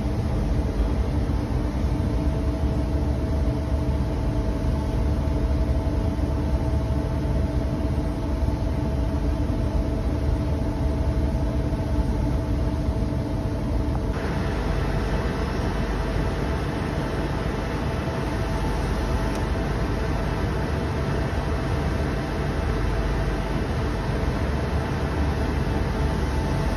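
Poreba TRB 135 N CNC lathe running, its spindle turning the large four-jaw chuck: a steady mechanical hum with a few steady tones over it. About halfway through, the tones fade and a brighter hiss comes in.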